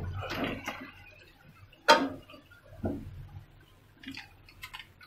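Cut tomato pieces tipped from a stainless steel bowl into a frying pan, then one sharp metal clank about two seconds in, followed by a softer knock and a few light clicks and taps of metal kitchenware.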